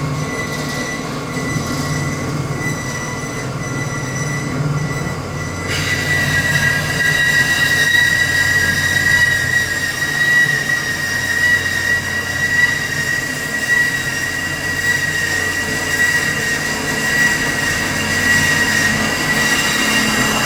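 Old pipe-cutting machine cutting through a steel concrete-pump pipe: a steady, high-pitched metallic squeal over a low motor hum. About six seconds in, the squeal grows louder and harsher.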